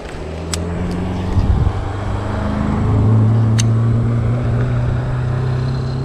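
A motor vehicle's engine running on the road, a steady low hum that rises in pitch about two to three seconds in and then holds. A few sharp clicks sound over it.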